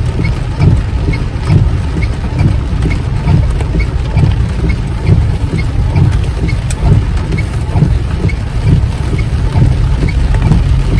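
Car cabin noise while driving on a rainy road: a loud, steady low rumble of engine, tyres and wind, with a faint regular ticking about twice a second.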